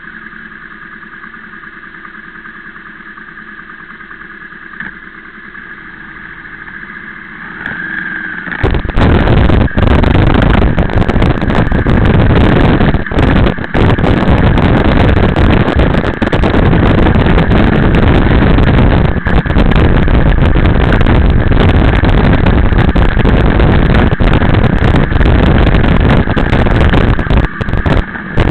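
Motorcycle engine idling at a standstill, a steady low hum. About eight seconds in the bike moves off and loud wind noise on the microphone takes over, burying the engine for the rest of the ride.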